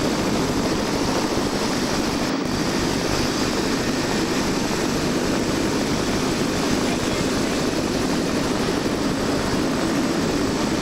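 A turbine helicopter running close by on the pad, its engine and turning rotor making a steady, dense rush with no change.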